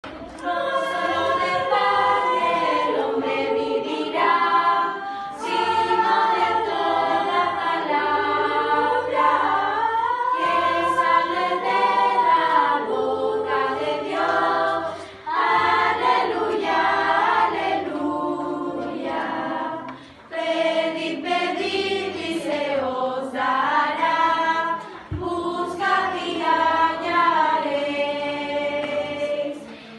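School choir singing in phrases, with a brief pause between phrases about every five seconds.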